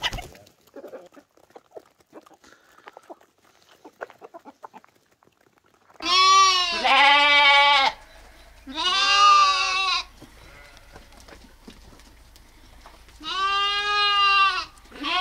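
Faint scattered clicks of chickens pecking grain, then, from about six seconds in, lambs bleating loudly in four long calls, the last one starting right at the end.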